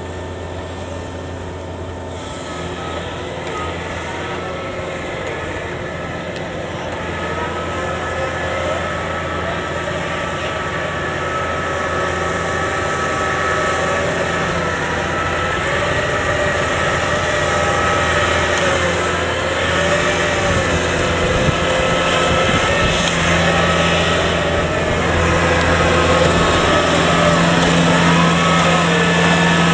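Kubota DC70 Plus combine harvester's diesel engine running hard as the tracked machine labours through deep, sticky mud, getting steadily louder as it comes closer.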